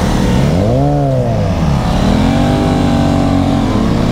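Aprilia Tuono 660's parallel-twin engine under hard acceleration: the revs sweep up and then drop back about a second and a half in, then pick up again and hold, pulling steadily.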